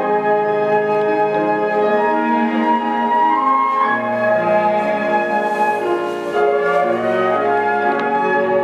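Flute ensemble playing a slow passage of held notes in harmony, with a low part coming in about four seconds in.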